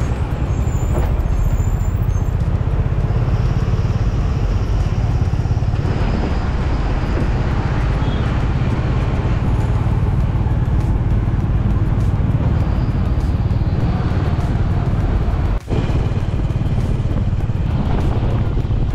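Steady road and engine rumble heard from inside a moving vehicle, with a brief dropout in the sound near the end.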